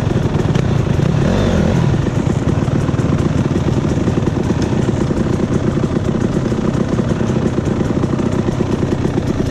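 Off-road dirt bike engines running, the nearest one loud and dense, its revs rising and falling briefly about a second in as the bikes pull away on a dirt trail.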